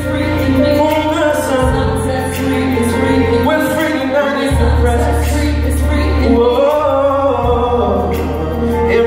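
Live gospel music: voices singing held harmonies over a band with a heavy bass line, heard from the audience.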